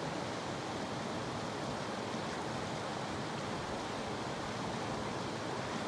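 Steady rush of creek water flowing over rocks.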